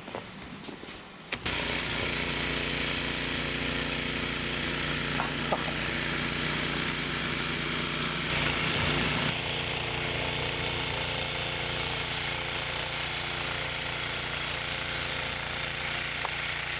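Gas snowblower engine running steadily under load as it throws snow. It cuts in abruptly about a second and a half in, after a few faint scrapes.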